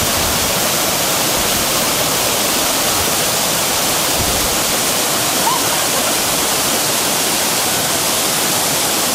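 Sanje Falls waterfall pouring: a loud, steady rush of falling water.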